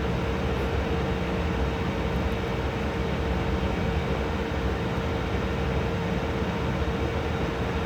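Home-built workstation's cooling running steadily under load, with its fans and a small 5 V aquarium water pump giving an even whir and a constant hum.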